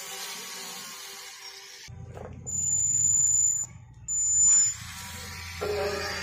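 Homemade drill built from a 1000 kV brushless motor running in two short bursts with a high, steady whine while drilling into an aluminium heatsink; the second burst ends with the pitch falling as the motor spins down. Background music plays at the start and end.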